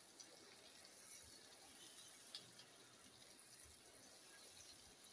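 Faint, steady sizzling of a mashed bottle gourd and onion mixture frying in oil in a nonstick pan, with a few soft scrapes of a silicone spatula stirring it.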